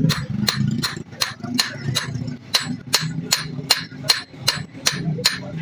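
Hammer blows on red-hot cleaver steel laid on an anvil, struck at a steady pace of about three a second with a short metallic ring on each blow: the blade is being hot-forged.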